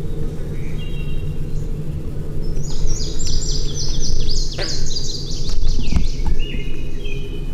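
A songbird singing a rapid run of high, repeated chirping notes for about four seconds, with a few shorter bird notes before and after it. A steady low rumble runs underneath.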